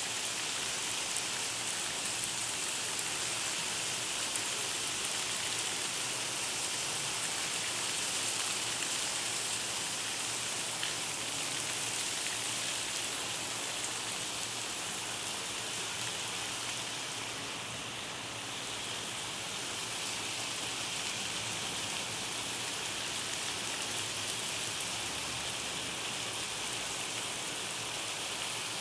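Heavy rain falling, a steady hiss of rain on the pavement and roofs, briefly a little softer about two-thirds of the way in.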